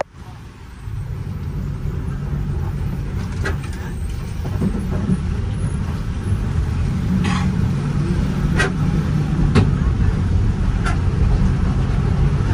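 A bus's engine running steadily, heard from inside the passenger cabin. It starts about a second in and grows slightly louder, with a handful of short sharp clicks or rattles over it.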